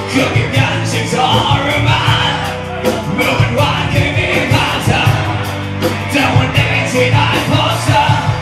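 Loud live rock band playing, with drum hits in a steady beat under singing, and a crowd yelling and singing along.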